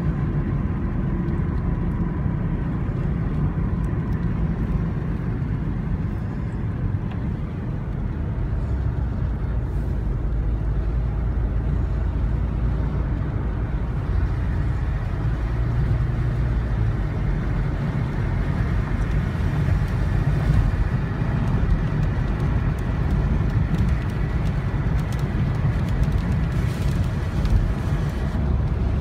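Steady low rumble of a car driving on a wet road, heard from inside the cabin: engine and tyre noise with no sharp events.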